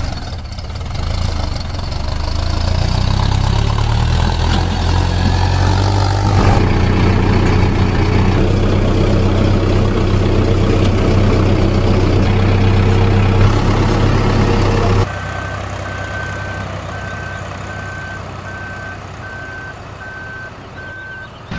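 Heavy diesel engine running steadily and loud, then cutting abruptly to a quieter engine hum with an evenly repeating high electronic beep like a reversing alarm.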